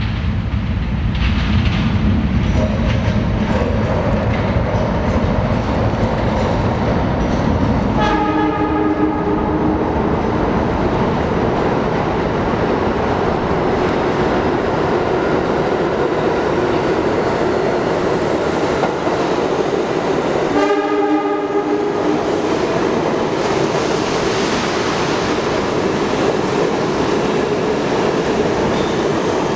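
Budd R32 subway train rumbling and clattering along the rails as it approaches and runs through an underground station, with its WABCO AA-2 air horn sounded twice, about two seconds each time: once about eight seconds in and again about twenty-one seconds in.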